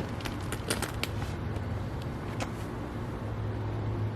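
A quick run of sharp cracks and pops from the spine during a chiropractic adjustment, bunched in the first second or so, with one more crack a little over two seconds in, over a steady low hum.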